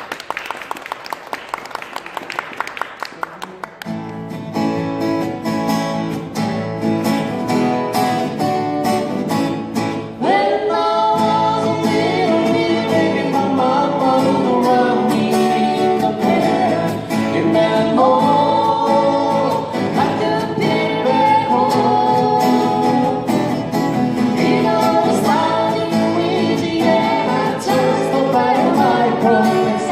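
Live acoustic folk band: strummed acoustic guitars with bass, a singer coming in about ten seconds in. The song opens on applause with a steady beat before the full band enters about four seconds in.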